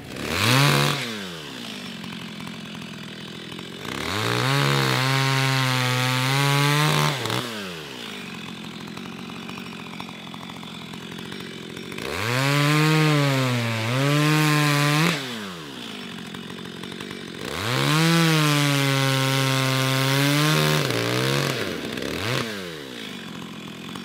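Two-stroke chainsaw revved once, then cutting through a log three times, each cut several seconds long with the engine pitch sagging under load, and dropping back to idle between cuts.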